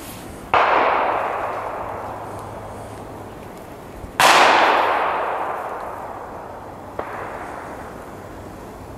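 Three gunshots at even spacing of about three and a half seconds, each followed by a long echo dying away through the surrounding woods; the second is the loudest and the third much fainter and more distant.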